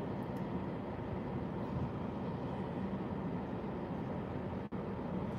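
Steady low hum and hiss inside a car cabin, with a faint thin tone running through it; the sound cuts out for an instant near the end.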